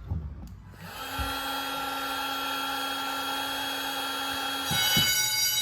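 Heat gun blowing on a caged heat detector to trip it: a steady whirring hiss that starts about a second in and stops after about four seconds. Right after it stops, a fire alarm signal starts sounding with steady ringing tones.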